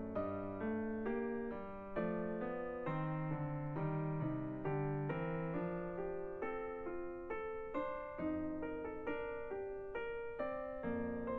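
Background music: a gentle piano melody played as a flowing run of single notes over low sustained bass notes.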